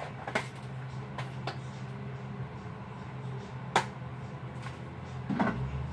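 Small sharp clicks and taps from coffee things being handled, three spread through and a duller knock near the end, over a steady low hum.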